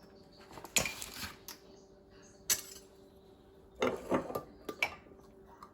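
A few separate light knocks and clinks of kitchen utensils and jars being handled on a countertop, with short quiet gaps between them.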